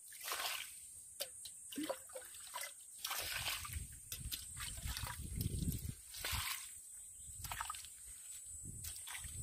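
Muddy water sloshing and splashing as a metal bowl scoops it out of a dug pit, in several uneven scoops with drips and small knocks, the heaviest sloshing midway through.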